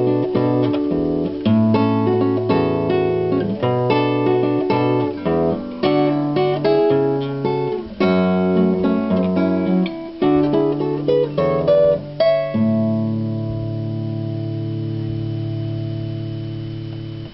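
Classical guitar built by luthier Eric Sahlin, fingerpicked: a run of melody notes over bass notes and chords, then a final chord about twelve seconds in that is left to ring and slowly fade for about five seconds before it is suddenly cut off, the close of the piece.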